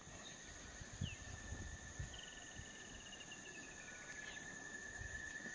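Faint rural ambience: insects shrilling steadily at two high pitches, with a bird giving a short chirp about a second in and a long descending trill from about two seconds in. A few low thumps sound around the first and second seconds.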